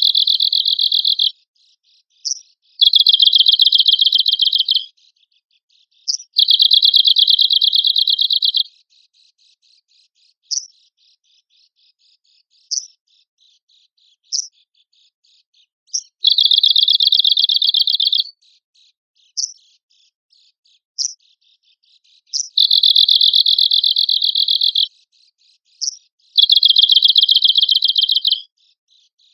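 Arctic warbler (cikrak kutub) singing: loud, high, dry rattling trills of about two seconds each, six in all, with single sharp call notes between them and only call notes for several seconds in the middle.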